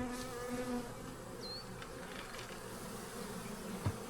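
Honeybees buzzing steadily over an open hive full of nurse bees. A brief high chirp sounds about one and a half seconds in, and a light knock near the end.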